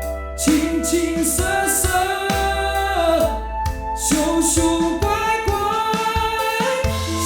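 Synthesizer V AI-generated singing voice carrying a slow ballad melody over instrumental accompaniment with held low bass notes.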